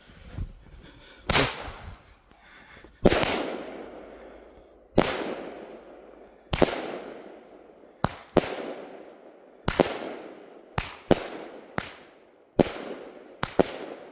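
WECO firework battery (cake) firing shot after shot: about a dozen sharp bangs, at first a second or two apart and then coming faster, each trailing off in a fading tail.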